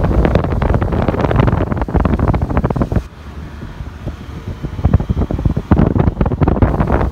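Wind buffeting a phone microphone held out of an open window of a moving car: a loud, gusty rush that eases about three seconds in and picks up again about two seconds later.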